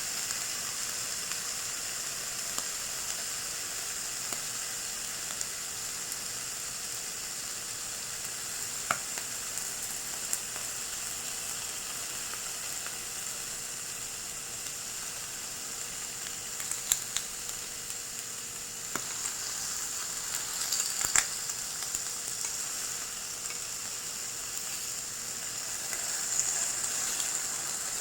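Japanese A5 Wagyu beef searing on a hot iron plate: a steady, high sizzle of the fat and juices frying, broken by a few sharp pops or clicks.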